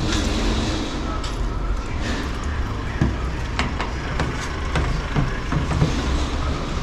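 Silicone spatula stirring shredded fish in a stainless-steel pot, with several light clicks and knocks against the metal in the second half, over a steady low rumble.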